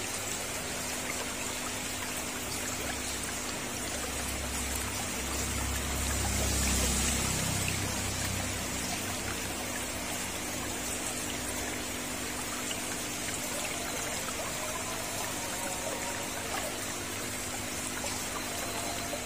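Steady trickling, splashing water in a paludarium, with a faint steady hum underneath. A low rumble swells about four to eight seconds in.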